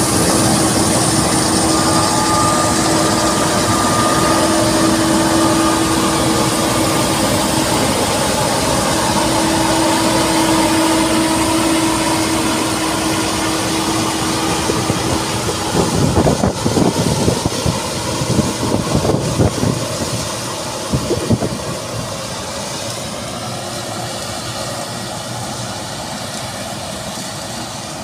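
Claas Tucano 560 combine harvester running under load while harvesting: a steady machine drone with a held hum through the first half. About two-thirds of the way through comes a run of uneven loud rumbles, then the sound slowly fades as the combine moves off.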